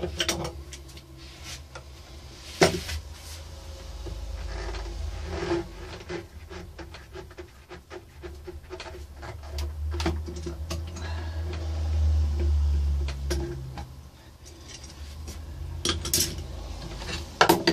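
Metal tools and parts clinking, knocking and rubbing on a workbench as a homemade wooden lathe is taken apart, with scattered sharp clicks: one loud knock about two and a half seconds in and a run of clicks near the end.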